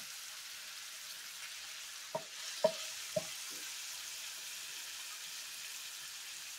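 Ground beef and sausage sizzling steadily in an electric skillet, nearly done browning, with a few short knocks about two to three seconds in.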